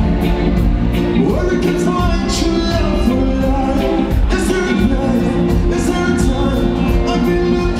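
Live reggae band playing, with drums, bass guitar and keyboards under a male singer's vocals, over a steady beat.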